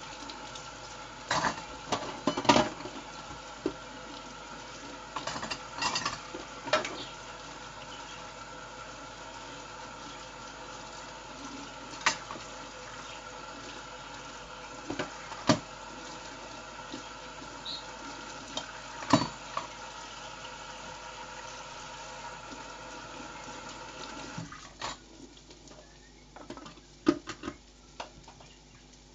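Dishes and cutlery clattering in a kitchen: scattered sharp clinks and knocks over a steady appliance-like hum, which stops about 24 seconds in, leaving a few more clicks.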